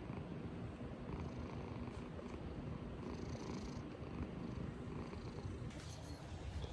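Domestic tabby cat purring steadily and close up while dozing with its eyes closed, a contented resting purr.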